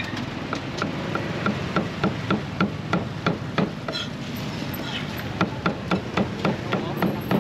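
Cleaver chopping grilled beef on a round wooden chopping block: quick, even strokes about three a second, a short pause partway, then another run of chops.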